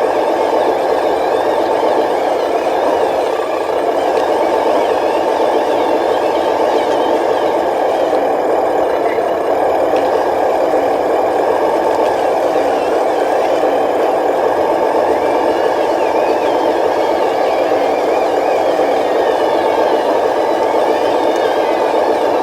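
Radio-controlled construction trucks and machinery running steadily, a continuous engine-like drone with no break.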